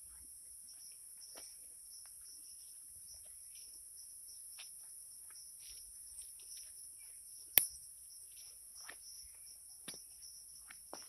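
Steady high-pitched chorus of crickets or similar insects, with soft scattered scuffs of footsteps on soil. A single sharp click about seven and a half seconds in is the loudest sound.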